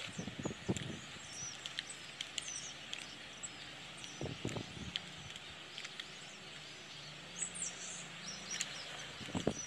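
Outdoor ambience: birds chirping over a steady hiss, with a few brief low thumps near the start, about halfway through, and near the end.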